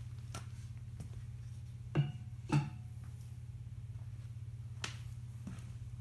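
A few light knocks and clicks as a pottery bat carrying a clay bowl is handled and set down on the wheel, over a steady low hum. Two short pitched sounds come about two and two and a half seconds in.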